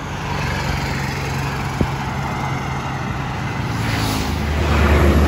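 Highway traffic running past, with a steady engine hum, and a heavier vehicle passing close, its low rumble growing louder from about four seconds in.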